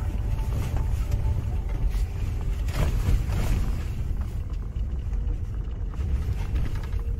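An off-road 4x4 driving, with a steady low rumble of engine and tyres and a brief rushing noise about three seconds in.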